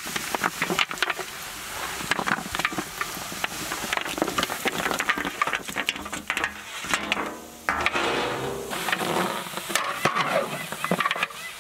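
Raw mutton shank pieces being pushed off an aluminium tray and dropped into a large aluminium cooking pot: a dense run of knocks and clatters of bone and meat on metal, with the tray scraping.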